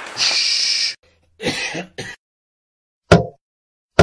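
Cartoon sound effects: a short hiss, then a few short vocal noises, the last two loud and sharp, about a second apart.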